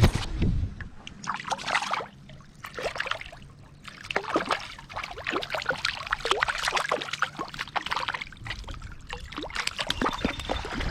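Water splashing and trickling close by in quick, irregular bursts, as a freshly caught brook trout is handled at the kayak's side.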